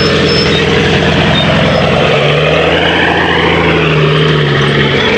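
A heavy truck engine idling close by, with a steady deeper hum that comes in about two seconds in and drops away near the end.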